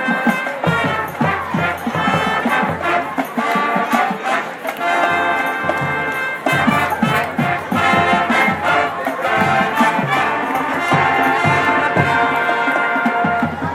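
Marching band playing a jazz arrangement: brass holding loud chords over steady drum hits from the drumline.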